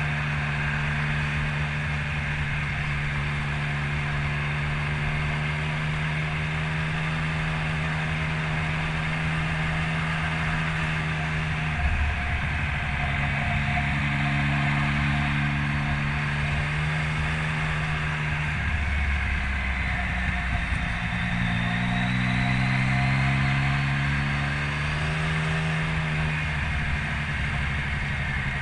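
Motorcycle engine running at a steady pace while riding. Its pitch drops about twelve seconds in and again a few seconds later, then climbs steadily as the bike speeds up.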